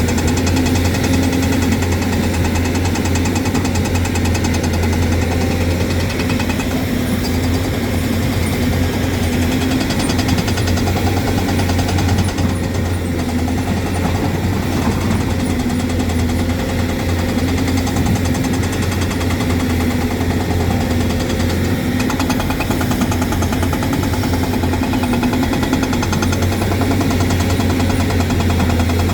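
Hyundai excavator's diesel engine running steadily with a low, even hum.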